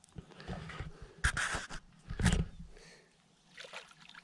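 Water splashing twice in quick succession, about a second and two seconds in, as a hooked fish thrashes in shallow water while it is being unhooked.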